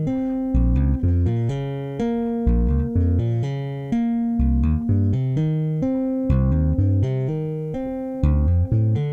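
Electric bass played fingerstyle, running quick arpeggios over minor chords, the notes plucked one after another with sharp attacks.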